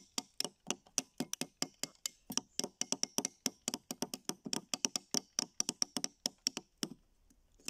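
Two small hammers striking metal chisels driven into a plaster fossil-excavation block: quick, irregular, overlapping taps, several a second. They stop shortly before the end.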